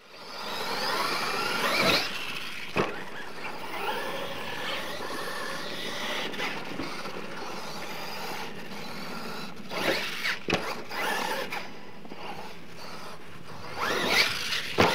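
Scale RC monster truck's motor and drivetrain whining, the pitch rising and falling with the throttle, with tyres scrabbling on loose dirt. Sharp knocks from bumps and landings come about two seconds in, around ten seconds in, and in a cluster near the end as the truck hits a ramp.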